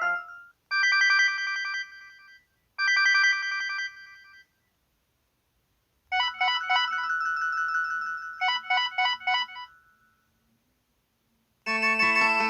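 LG KH1200 Cyon mobile phone's built-in ringtones and sound effects played one after another, with short silences between: a melody ends in the first half second, then come two similar short chimes, then a longer electronic alert with a held tone and a run of rapid beeps. A new, fuller melody starts near the end.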